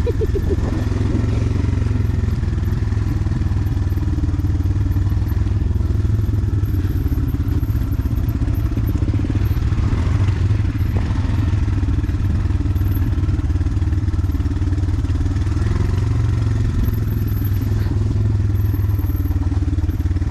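Motorcycle engine running steadily under way, its low drone holding throughout with slight rises and falls in pitch.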